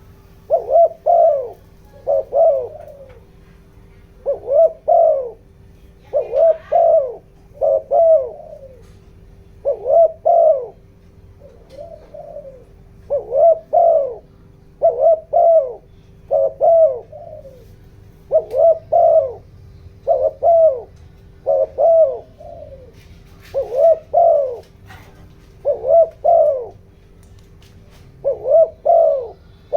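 A spotted dove (decoy bird) cooing over and over in short, quick phrases of two or three notes, about one phrase every one and a half to two seconds: the urgent 'thúc gù' coo used to provoke wild doves. A faint steady hum lies underneath.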